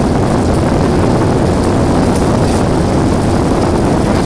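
Airbus A320's jet engines heard from inside the cabin, a loud, steady rushing rumble, as the airliner turns onto the runway for takeoff.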